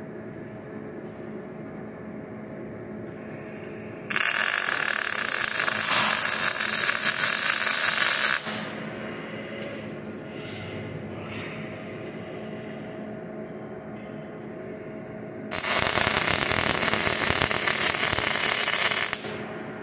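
Robot-held MIG welding torch striking an arc twice, each weld a loud, steady crackling hiss lasting about four seconds and stopping abruptly. Between the welds a steady machine hum is heard.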